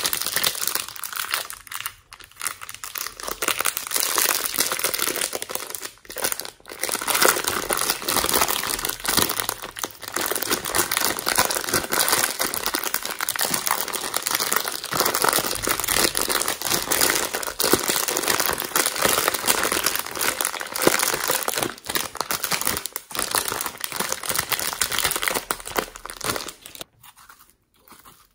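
Thin plastic slime packet crinkling and rustling as hands squeeze and knead the slime inside it and pull it out, with a couple of short pauses. The crinkling dies down near the end.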